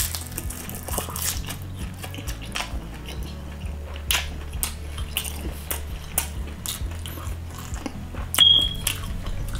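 Close-miked chewing of salmon, with wet mouth clicks and smacks over a steady low hum. A short high-pitched beep sounds near the end.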